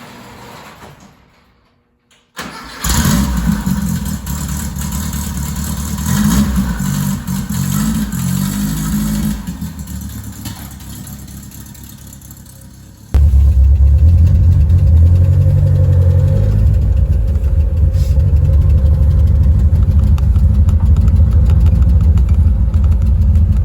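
1973 Volkswagen Karmann Ghia's air-cooled flat-four engine starting about two seconds in and running unevenly, with its pitch rising and falling and the sound gradually growing quieter. About thirteen seconds in the sound jumps suddenly to a louder, steady running note.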